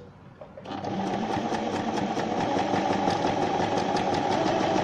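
Singer SM-MC9116 electric sewing machine starting up just under a second in and stitching steadily through fabric, with a fast, even ticking of the needle stroke. The upper thread tension is set at zero for a test seam.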